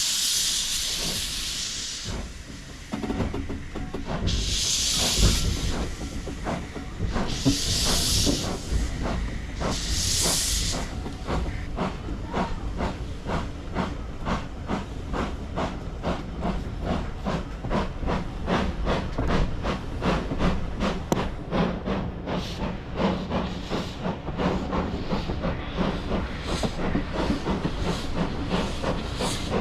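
Steam locomotive getting under way. It opens with four long hissing blasts of steam, each a second or two long, then settles into a steady run of exhaust beats that gradually quicken as it picks up speed.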